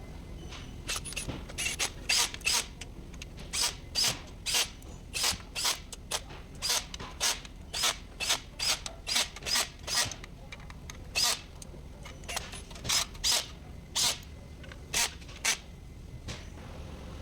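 Hand ratchet wrench worked in short repeated strokes, each back-swing a quick rasp of clicks, about two a second with a couple of brief pauses.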